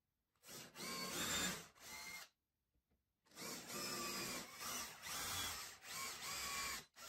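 Cordless drill with a countersink bit boring countersunk holes into plywood, the motor whining in short bursts as the trigger is squeezed and released. It runs once for about two seconds, pauses, then runs in several more bursts.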